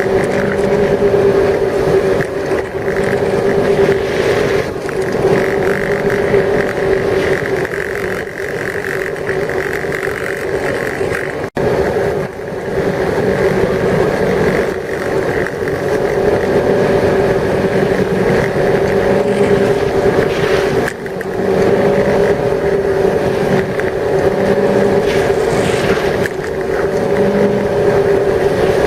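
Ski boat's engine running steadily at towing speed, a constant drone over the rush of water and wind, cut off for an instant a little before the middle.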